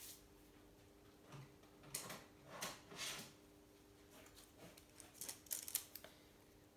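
Faint scraping and rustling strokes with a few small clicks as a tyre is handled and offered up into a steel bicycle frame to check clearance, over a faint steady hum.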